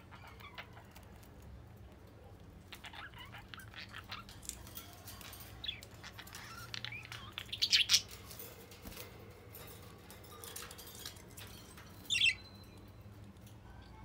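Budgerigars chirping and chattering in short scattered calls, loudest in a burst about eight seconds in, with one sharp call about twelve seconds in.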